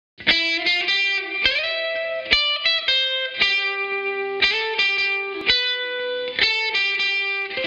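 Intro music: a distorted electric guitar plays a riff of picked notes, some bent upward in pitch, with a last chord struck near the end and left ringing.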